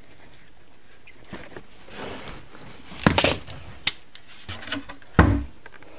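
Brief handling sounds of a cabinet door and its hinge being worked: a few short scrapes and knocks, the loudest cluster about three seconds in and another just after five seconds.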